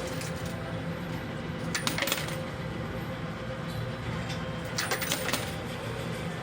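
Quarters clinking in a coin pusher machine: two short bursts of metal coins clattering, about three seconds apart, over a steady low hum.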